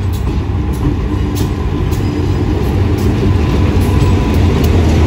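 GE-built GEA class diesel-electric locomotive running with a steady low rumble that grows slightly louder, with a faint steady whine and a few sharp clicks over it.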